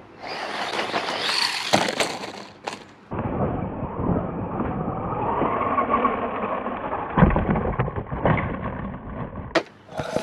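DEERC RC car driving along a dirt track and jumping off a dirt ramp: a steady rush of motor and tyres on loose dirt, with hard knocks about seven and eight seconds in as it lands.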